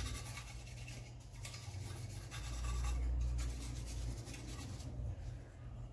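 Rubbing and scrubbing strokes on a laptop's plastic casing as it is cleaned of dust.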